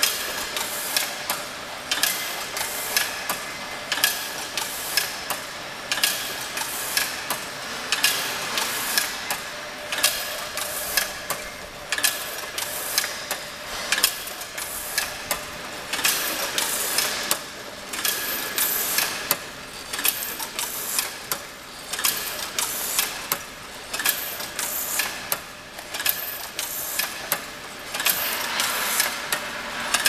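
Crimped wire screen-mesh weaving machine running: a steady clattering rhythm of sharp regular knocks as the loom beats in the weft wire, with a faint steady whine underneath.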